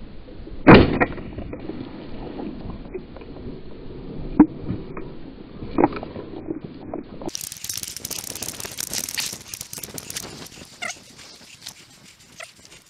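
Shotgun fired at a flying partridge: one loud shot about a second in, then two more sharp cracks at around four and six seconds. After that comes a busy rustling noise with small clicks.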